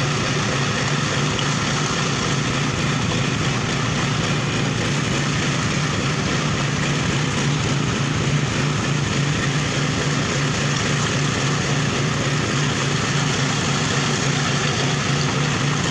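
Small engine of a walk-behind concrete power trowel running steadily as its rotating blades float fresh concrete, with an even low hum.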